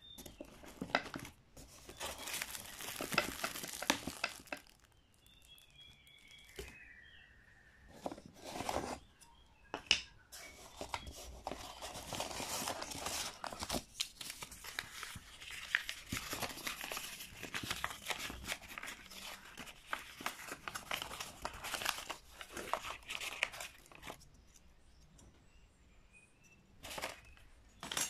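Cardboard shipping box being handled, rustling and scraping in irregular bursts, with a few sharp knocks.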